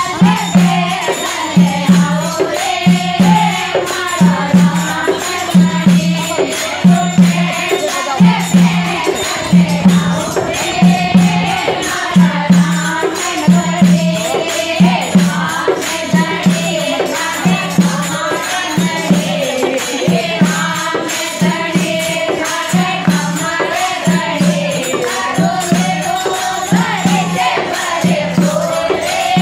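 A group of women singing a Rajasthani devotional bhajan in unison, with a dholak beating a steady rhythm of a little over one low stroke a second. Hand-shaken bells jingle along with the beat.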